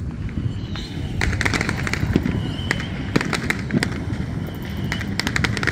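Fireworks and firecrackers going off in a quick, irregular run of sharp cracks and pops over a steady low rumble. The crackling comes thickest about a second in and again near the end.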